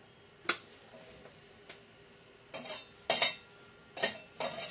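Sharp metallic clicks and short scrapes as wire leads are pulled off the mains transformer inside a metal amplifier chassis: one click about half a second in, then a run of clicks and scrapes in the second half.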